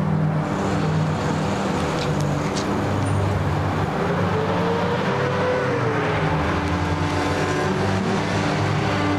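Steady road-vehicle noise with a low drone.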